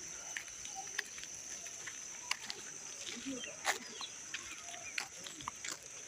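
Steady high-pitched insect drone in rural surroundings, with scattered sharp clicks and a few faint short calls or voices around the middle.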